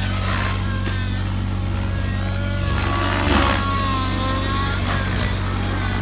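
Electric GAUI NX7 RC helicopter flying aerobatics, its rotor and motor whine rising and falling in pitch again and again as the head speed changes, over a steady low hum.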